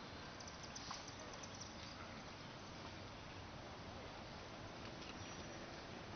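Faint, steady outdoor background hiss with a few faint ticks in the first couple of seconds.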